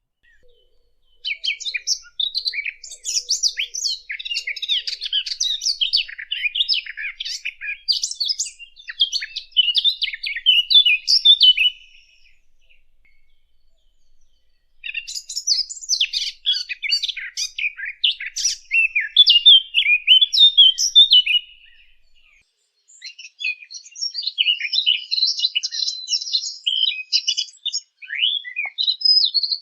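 A Sylvia warbler (the 'fig bird') singing long, rapid, rambling warbled phrases, three drawn-out bouts of song separated by short pauses.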